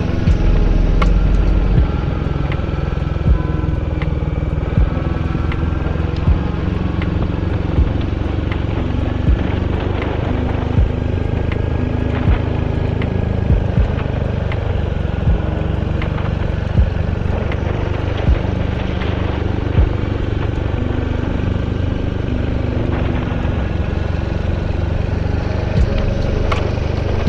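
Royal Enfield Hunter 350's single-cylinder engine running at a steady cruise, with wind and road noise. A sharp click comes about every second and a half.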